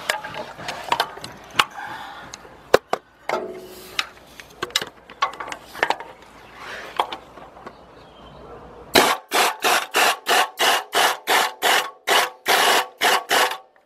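Hand ratchet tightening the spring-loaded exhaust-pipe-to-manifold flange bolts. First there are irregular tool clicks and scraping. About nine seconds in, a steady run of ratchet strokes begins, about three or four a second.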